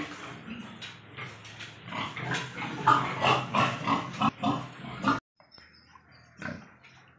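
Domestic pigs grunting in short, irregular grunts; the sound breaks off abruptly about five seconds in and only faint grunts follow.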